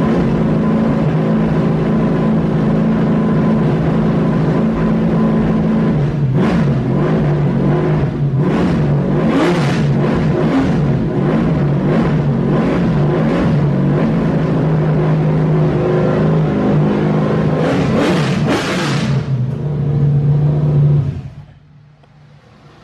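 A 1964 Chevy Nova late model race car's engine idles loudly and is blipped several times, the revs rising and falling. The engine shuts off near the end.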